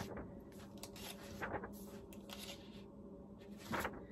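Pages of a hardbound cookbook being turned by hand: several soft, brief paper rustles.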